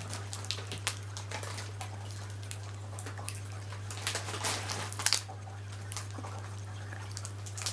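Scattered small crinkles and clicks from a lollipop being handled and unwrapped, loudest about four to five seconds in, over a steady low electrical hum.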